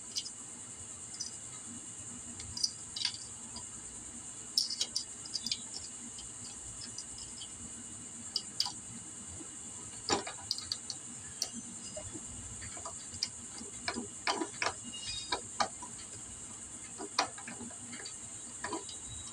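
Scattered light metallic clicks and taps of a GY6 50cc scooter engine's cam chain, camshaft sprocket and rocker parts being handled by hand while the chain is re-seated on the sprocket, which sat about a tooth off top dead center.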